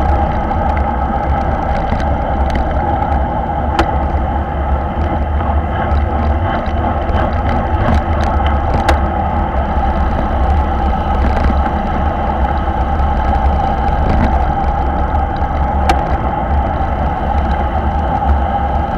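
Wind rushing over the microphone of a bike-mounted action camera at racing speed, about 40 km/h, with a steady low rumble and a few sharp clicks.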